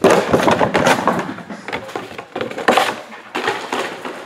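Plastic packaging crinkling and crackling as it is handled, in irregular bursts.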